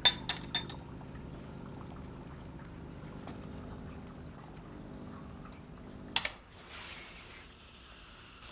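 Coffee machine running as coffee pours into a cup, with a steady hum and a few china clinks at the start. The machine stops with a sharp click about six seconds in, followed by a short hiss.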